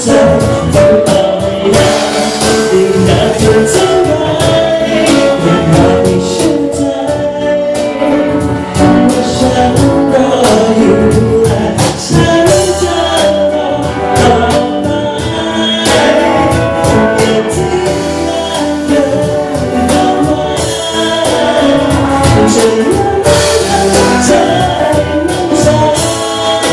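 A man singing a Thai-language pop song over a live band with acoustic guitar, loud and continuous.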